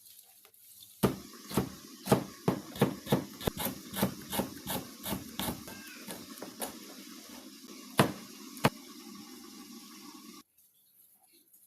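A kitchen utensil knocks sharply and repeatedly, about two to three times a second, then stops. Two louder single knocks follow.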